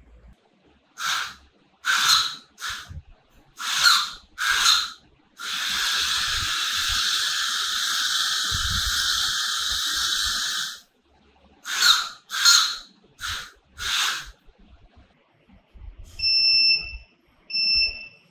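The small geared DC motors (BO motors) of a homemade robot car whir in short bursts, then run steadily for about five seconds, then whir in short bursts again. Near the end, the car's piezo buzzer horn beeps twice with a steady high tone.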